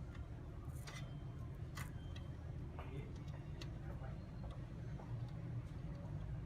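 Light, irregular clicks and taps over a steady low hum.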